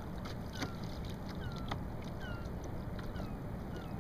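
Hobie Mirage kayak pedal drive squeaking with each pedal stroke: short falling squeaks about twice a second, with faint clicks, over light water and wind noise.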